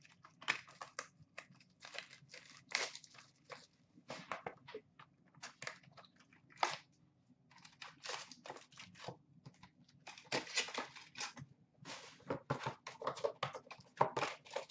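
Cardboard hobby box of Upper Deck Ice hockey cards being torn open and its foil-wrapped packs pulled out and handled: irregular tearing, crinkling and rustling.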